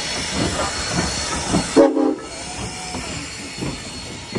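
Norfolk & Western 475, a 4-8-0 steam locomotive, rolling slowly past with a steady steam hiss and irregular knocks from its wheels and running gear. About two seconds in, a short toot of its steam whistle.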